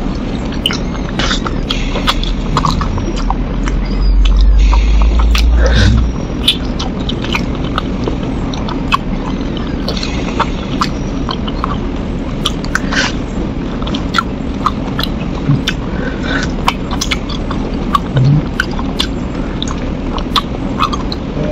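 Close-miked eating by hand: wet mouth clicks, smacking and sucking while chewing spicy chicken. A loud low rumble about four seconds in lasts some two seconds.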